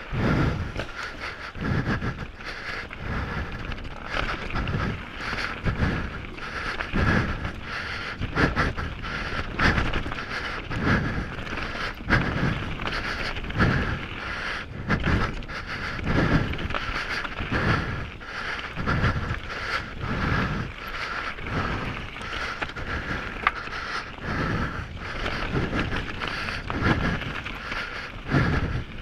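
Heavy breathing blasting straight onto a microphone right at a mountain biker's mouth, a puff about once a second, over the steady whir and scattered rattling clicks of the mountain bike rolling down a rough trail.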